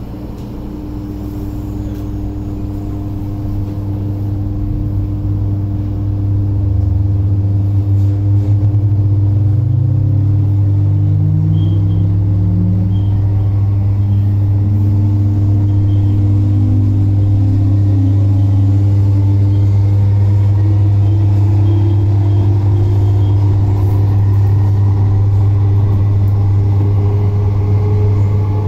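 Metro Cammell (MLR) electric multiple unit accelerating away from a station, heard from inside the passenger car. A deep, heavy hum swells over the first several seconds, and then the DC traction motors' tones climb steadily in pitch as the train gathers speed. The motors are old, giving a bass-heavy drone.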